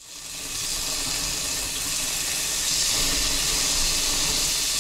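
Bacon sizzling on a portable gas grill's grate, a steady hiss that fades in at the start and grows a little louder about halfway through as the grease flares up.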